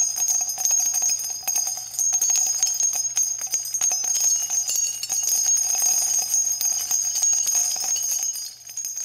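Bells jingling continuously, a dense shimmering rattle with steady high ringing, starting to fade near the end.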